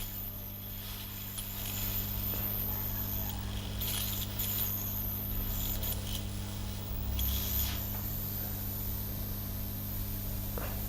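Steady electrical hum with a faint high whine from a hot-air rework station running during microsoldering on a phone board, with a few light ticks of metal tools.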